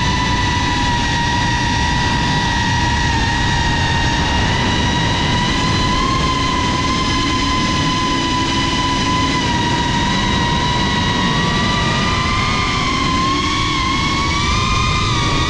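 GePRC CineLog35 FPV cinewhoop's motors and ducted propellers whining steadily in flight, heard close from the onboard camera. The pitch drifts gently with throttle and rises a little in the last few seconds, over a low rush of wind and prop wash.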